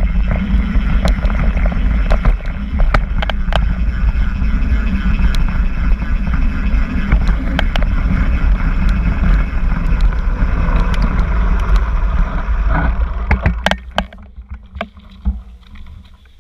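Mountain bike riding fast down a dirt trail, heard from a mount on the bike: a steady rumble of wind on the microphone and tyres rolling over dirt, with many sharp rattles and knocks from the bike over bumps. About three-quarters of the way through it drops much quieter as the bike slows on gravel.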